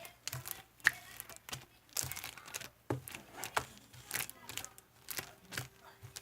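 Marbling slime being squished and pressed by hand, giving irregular sticky clicks and crackling pops, one to three a second.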